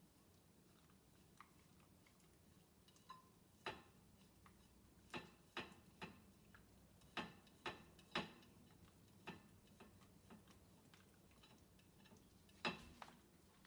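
Faint, irregular clicks and taps as a schnoodle licks dirty plates in the lower rack of an open dishwasher, its tongue and muzzle knocking on the plates and the wire rack. The clicks start about three seconds in and come scattered, some in quick pairs.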